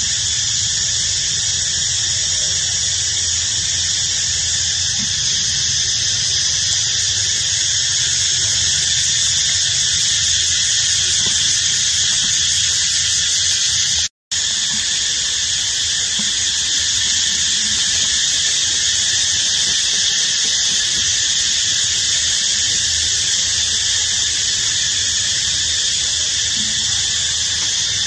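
Loud, steady, high-pitched drone of cicadas calling, unbroken except for a split-second dropout about halfway through.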